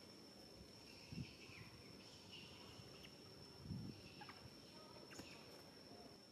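Near-silent outdoor ambience: a steady high-pitched insect drone with faint chirps, broken by two soft low thumps, one about a second in and one near four seconds.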